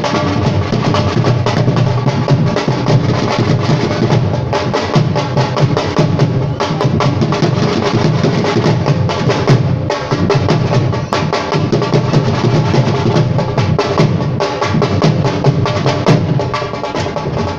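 Music driven by fast, dense drumming, with rapid strikes running continuously over a sustained pitched accompaniment.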